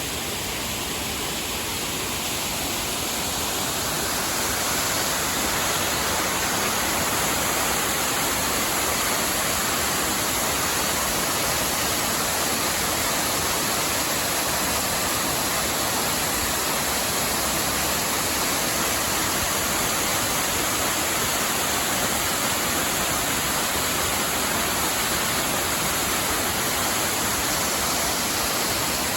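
Cascade waterfall rushing: a steady, dense hiss of falling water that grows louder over the first four or five seconds and then holds.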